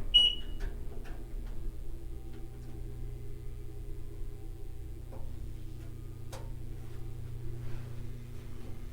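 Elevator on a test run: a steady motor hum throughout, with a short high beep just after the start and a few light clicks and knocks along the way.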